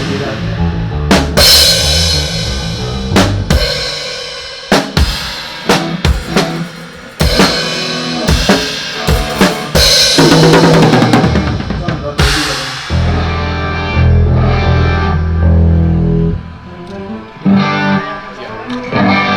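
Drum kit being played in a sound check: kick drum, snare and cymbal hits. About 13 seconds in, the hits thin out and low held instrument notes take over.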